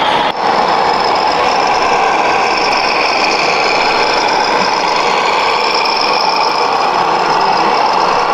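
Scale RC truck running with a diesel-engine sound from its onboard sound module, steady throughout, with a short drop just after the start.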